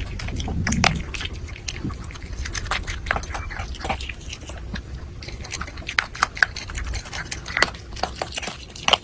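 Small dog crunching dry kibble, with many short crisp crunches. A brief low sound comes just before a second in.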